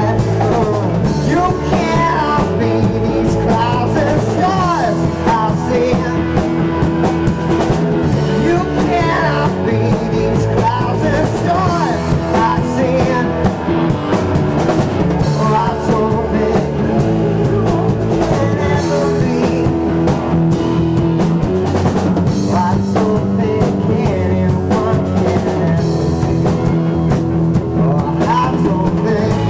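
A rock band playing live: a singer singing into a microphone over guitar and drums.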